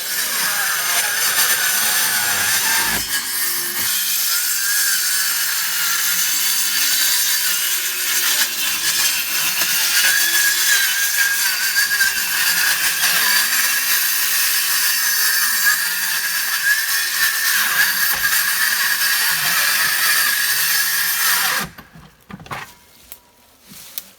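Circular saw cutting through a wooden wall, a steady motor whine with cutting noise that stops abruptly near the end, followed by a few light knocks.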